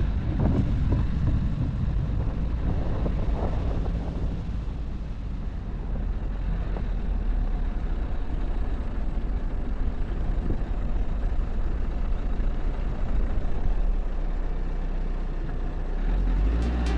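Off-road vehicle driving, with a steady low rumble of engine and road noise.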